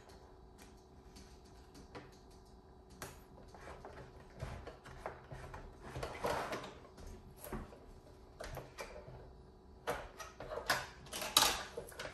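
Light clicks, taps and rattles of plastic toy-track pieces and small die-cast cars being handled and pressed together on a wooden tabletop, scattered at first and becoming a louder, busier clatter near the end.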